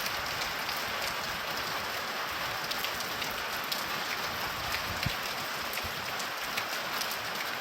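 Steady rain falling, an even hiss with scattered sharp ticks of individual drops striking a surface.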